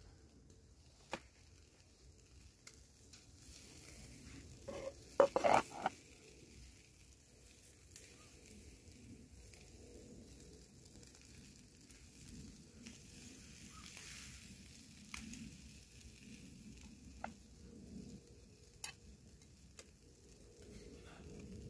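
Faint sizzling of food frying, with scattered sharp clicks and a short cluster of louder clatter about five seconds in.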